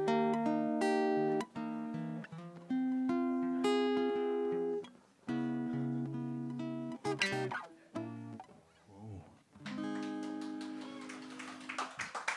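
Acoustic guitar strumming the closing chords of a song, each chord left to ring before the next. After a short pause near the middle, a last chord is held out.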